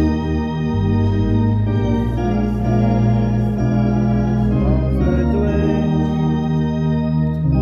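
Organ playing slow, sustained chords, moving to a new chord every couple of seconds.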